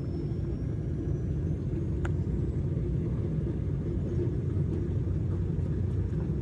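Airliner cabin noise: a steady low rumble, with one light click about two seconds in.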